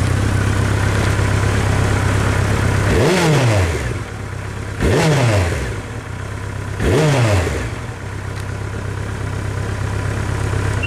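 Honda CB1300 Super Bol d'Or's inline-four engine through its stock exhaust, idling steadily, then revved three times in quick blips about two seconds apart, each one rising sharply and falling back to idle.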